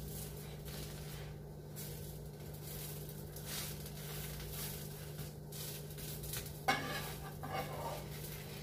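Metal spatula scraping under and folding a dosa on a hot flat pan, with the faint sizzle of the dosa cooking over a steady low hum. One sharp knock of the spatula on the pan comes about two-thirds of the way through.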